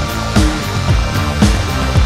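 Background music with a steady beat of about two strong bass-drum hits a second over a bass line.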